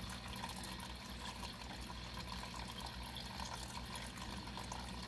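Steady background hiss with a low hum underneath, even throughout, with no distinct sound events.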